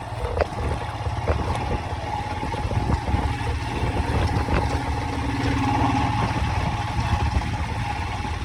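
A vehicle engine running steadily with a low rumble and a steady hum, under road and wind noise.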